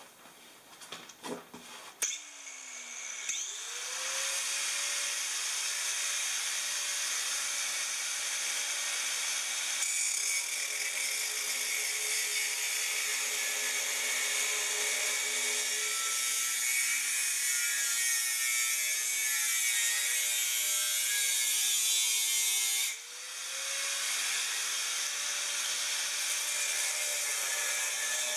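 Angle grinder with a cutting disc slicing through the stainless steel pipe on a large lorry silencer. A few handling knocks come first, then the grinder clicks on about two seconds in, spins up and grinds steadily. Near the end the grinding drops away for a moment, then resumes.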